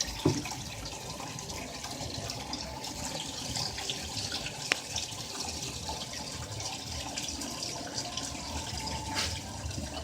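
Washing machine with water running and sloshing inside it, a steady wash of water noise. A single small click comes about halfway through.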